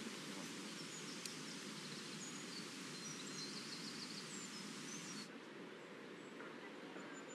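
Faint outdoor ambience: a steady low background hum with small birds chirping, several short high chirps in the middle. The background changes abruptly about five seconds in, and a high bird trill starts near the end.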